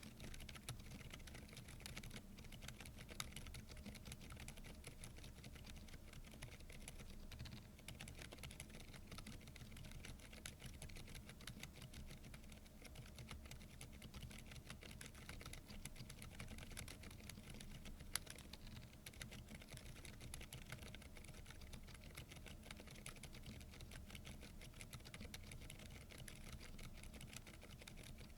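Continuous quiet typing on a Keychron V10 Pro Max mechanical keyboard fitted with K Pro silent tactile banana switches: a steady run of soft keystrokes, with a sharper, louder key hit about three seconds in and another about two-thirds of the way through.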